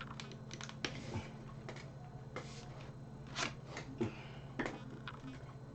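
Faint scattered clicks and knocks of plastic parts being handled as the handle is pushed into a Vax Glide cordless vacuum cleaner, with a short rustle about two and a half seconds in, over a low steady hum.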